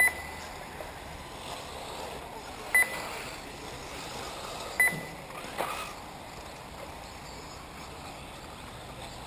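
Short, high electronic beeps from an RC race's lap-counting system, three of them about two seconds apart, each marking a car crossing the timing line, over a steady hiss.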